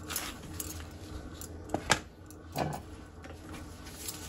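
Quiet kitchen handling: a few light clicks and taps, the sharpest pair about halfway through, over a low steady hum.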